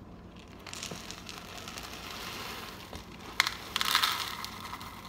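Small dry cereal pieces pouring from a plastic dispenser into a plastic bowl, a steady rustling hiss, with a few louder clatters about three and a half to four seconds in.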